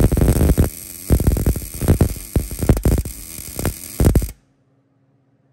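Wire-feed (MIG) welding arc crackling and sputtering irregularly while a bead is laid, cutting off abruptly a little over four seconds in when the arc stops.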